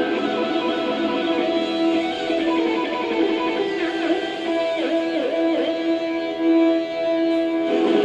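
Karaoke backing track playing a heavy-metal instrumental outro, led by electric guitar holding sustained notes, with a few bent, sliding notes around the middle.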